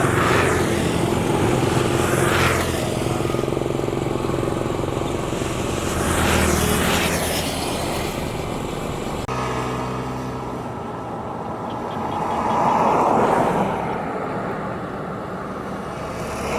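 Motor vehicles passing one after another on a road, each engine swelling and fading as it goes by, about four passes in all.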